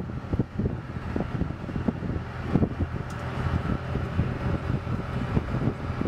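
Ultra Heavy Lift Amphibious Connector (UHAC) tracked amphibious vehicle running, a steady low engine drone as it crawls over the ground, with wind buffeting the microphone in irregular gusts.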